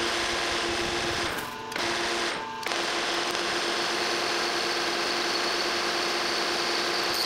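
Metal lathe running with its chuck spinning 7/8-inch hex bar stock: a steady motor and gear hum with the hiss of cutting. The level dips briefly twice in the first three seconds, and later a twist drill in the tailstock bores into the end of the spinning stock.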